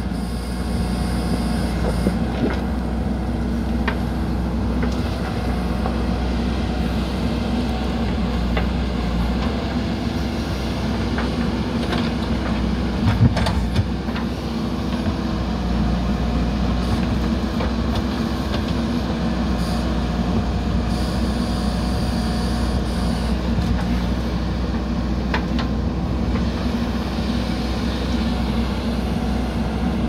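JCB 3DX backhoe loader's diesel engine running steadily while the backhoe arm digs, with a few sharp knocks now and then.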